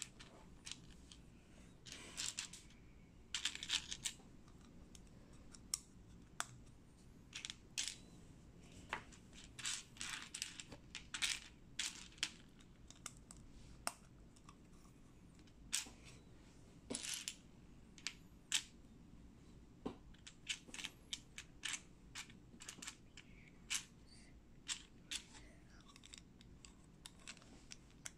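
Small plastic Sembo Block bricks clicking and clattering as they are handled and pressed together, in many short, sharp clicks at irregular spacing, some in quick clusters.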